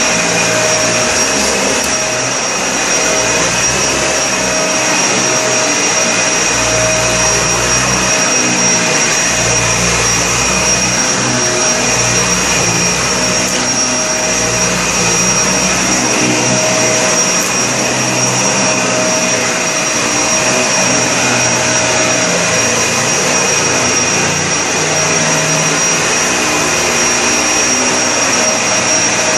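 Vacuum cleaner running steadily: a rushing airflow with a thin, high whine held over it.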